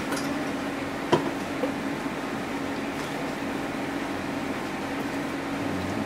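Steady mechanical hum of room equipment such as a fan or air conditioner, with a single sharp click about a second in.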